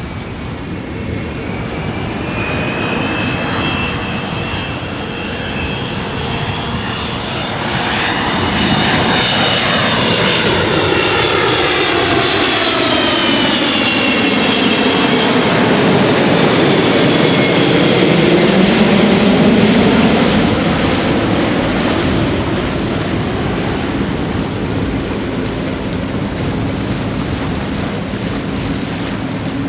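Boeing 777-200 jet airliner passing low overhead: its engine whine falls steadily in pitch as it goes by, followed by a deeper rumble that swells and then fades.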